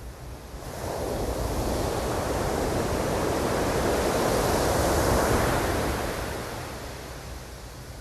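Ocean surf: one wave breaking and washing up, rising from about a second in, loudest around five seconds, then fading near the end.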